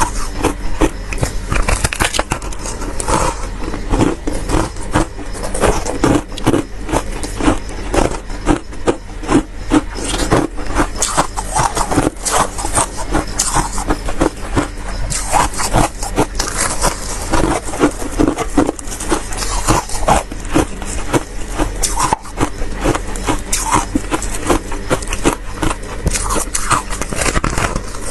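Freezer frost crunching and scraping: a dense, continuous run of rapid crackly scrapes and crunches.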